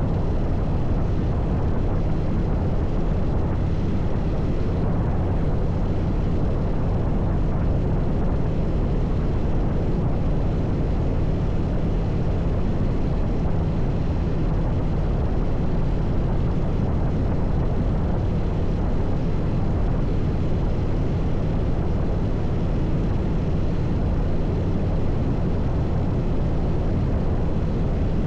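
Steady low engine drone under a constant rushing noise, holding one pitch throughout.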